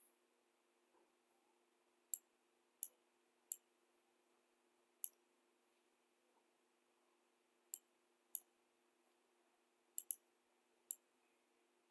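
Computer mouse clicking, about nine sharp single clicks at irregular intervals, including a quick double click about ten seconds in, over a faint steady electrical hum.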